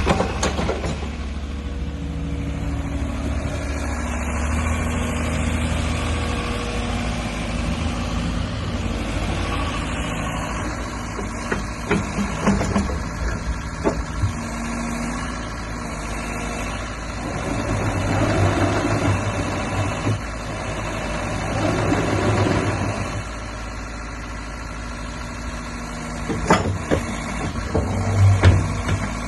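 JCB 86C midi excavator's diesel engine running steadily, with scattered knocks and two swells in level near the middle.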